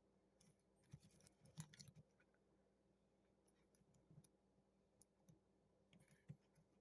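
Near silence with a few faint, scattered clicks of a plastic action figure being handled.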